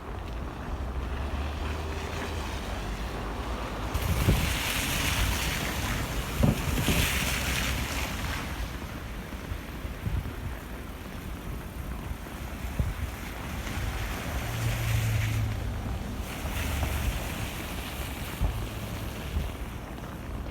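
Outdoor snowstorm ambience with wind buffeting the microphone as a steady low rumble. A rushing hiss swells up and fades twice, around four seconds in and again near the end.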